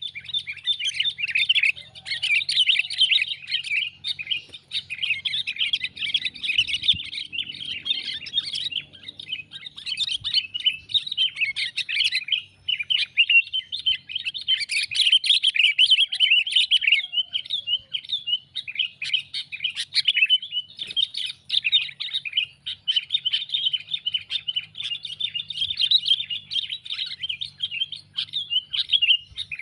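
Sooty-headed bulbul (kutilang) calling in a rapid, unbroken stream of chattering chirps: an excited call used as a lure to draw in wild bulbuls.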